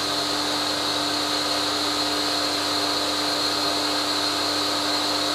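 Bosch EasyAquatak 120 pressure washer running steadily, a constant electric hum with a high whine over it, as its pump sucks water up the suction hose to prime itself; until it is full it runs on like this and only a trickle comes from the gun, and it switches itself off once full.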